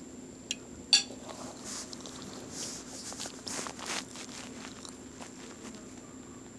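Handling noise close to a phone's microphone: a small sharp click, then a louder click about a second in, followed by a few seconds of rustling and scraping that dies away. A faint steady hum runs underneath.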